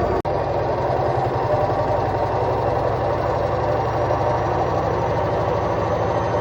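Bush WMSAE812EB washing machine running with its drum turning fast, a steady hum over a quick, even low pulsing from the rotating drum. The spins are very unbalanced. The sound cuts out for an instant about a quarter of a second in.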